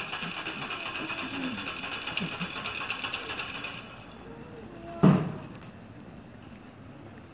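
A hand-swung wooden ratchet rattle (raganella) rattling fast and steadily, then stopping a little under four seconds in. About five seconds in comes one loud, deep thump.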